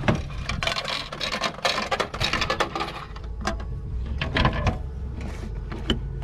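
Vending machine dispensing a crepe in a glass jar: the mechanism rattles and clicks busily for about three seconds. A few separate clacks follow as the delivery flap is pushed open and the jar is reached for.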